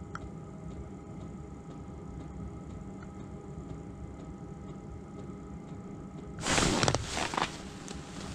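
A quiet steady hum, then about six and a half seconds in a loud rustle of winter clothing as the ice fisherman shifts his seat, followed by a second, shorter rustle.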